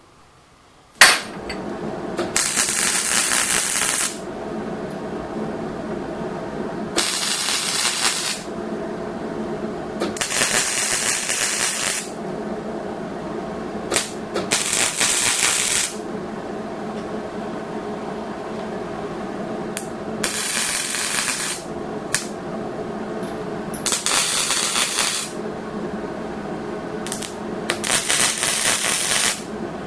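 Welder laying seven short welds on steel go-kart frame tubing, each a burst of hissing arc noise lasting about a second and a half, several seconds apart, over a steady hum.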